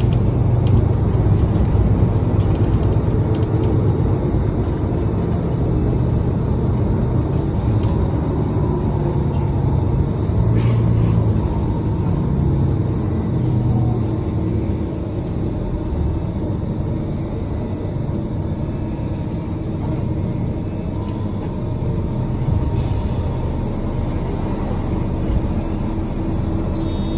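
Steady engine and road rumble of a moving motor vehicle, heard from inside the cabin.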